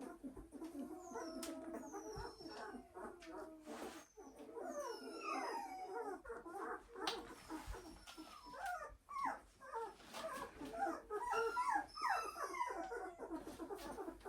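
Two-week-old German shorthaired pointer × English pointer puppies whimpering and squealing: a steady stream of short, high cries that slide up and down, several overlapping at once.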